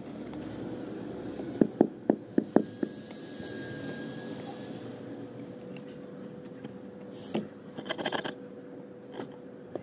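Quick sharp taps on ceramic floor tile as it is handled and set: five taps about two seconds in, then another cluster of knocks near the end.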